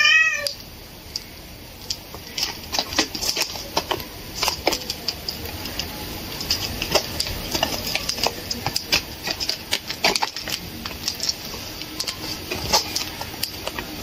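A small parrot gives one short call with a rising-then-falling pitch right at the start. This is followed by many irregular small clicks and taps as it bites and tugs the metal-tipped drawstring of a hoodie, with some fabric rustling.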